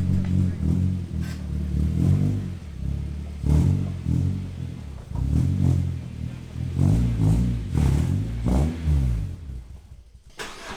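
Car engine revved in repeated short blips, its pitch rising and falling over and over as the vehicle is eased along, then dying down near the end.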